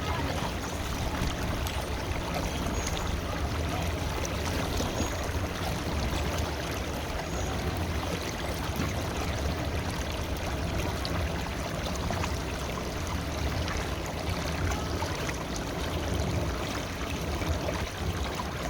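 River water flowing steadily: a continuous, even rush of water with a deep low rumble beneath it.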